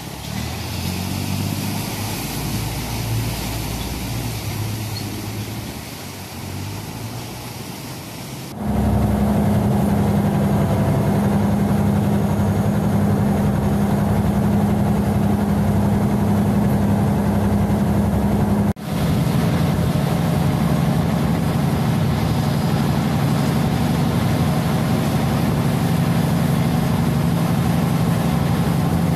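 Canal express boat's diesel engine: a lower, uneven engine sound with water noise at the pier, then about nine seconds in a sudden change to a loud, steady drone as the boat runs at speed along the canal.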